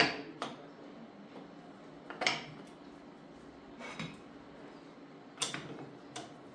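Metal parts clinking and knocking on a hard surface: about six sharp knocks a second or two apart, the loudest at the start, over a faint steady hum.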